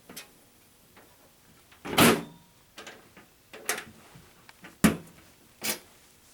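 Several separate knocks and clicks as fire alarm equipment is handled during a reset. The loudest are a heavier knock about two seconds in and a sharp click just before five seconds, with two more knocks between and after them.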